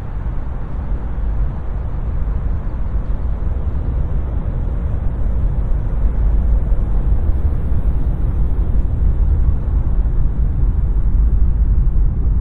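Low, steady rumbling noise from a wrestler's entrance theme soundscape, with no clear beat or melody, slowly growing louder.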